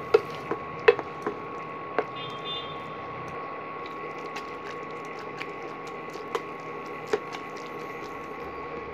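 Metal potato masher working thick cooked vegetable mash in a steel pan, with scattered sharp clicks as it knocks against the pan, the loudest about a second in. A steady faint hum runs underneath.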